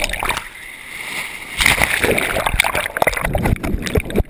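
Churning water and bubbles heard through an action camera's waterproof housing under the surface: irregular sloshing and splashing with many small pops. It eases for about a second near the start, then turns into a dense, busy rush.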